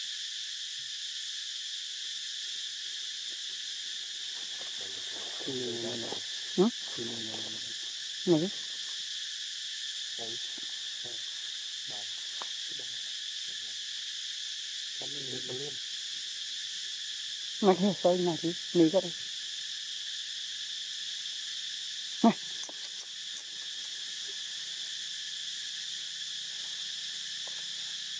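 Steady high-pitched drone of insects, with short low-pitched vocal sounds several times, loudest about six, eight, eighteen and twenty-two seconds in.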